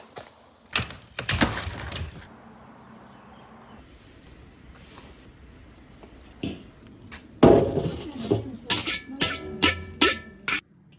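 Knocks and thuds of hard objects being handled, then, after a quieter stretch, a heavy impact followed by a quick run of ringing clanks that stop just before the end.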